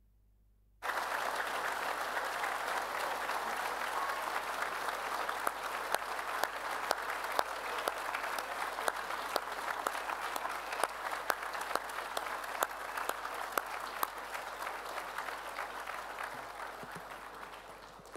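Large audience applauding, starting suddenly just under a second in after a brief silence and thinning out near the end.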